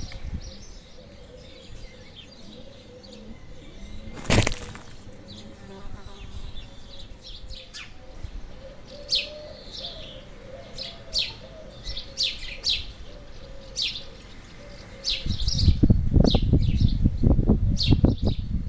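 Small garden birds chirping: a string of short, sharp chirps, each dropping in pitch, about one a second. A single brief loud noise comes about four seconds in, and a loud, low, rough rustling starts about three quarters of the way through and runs on.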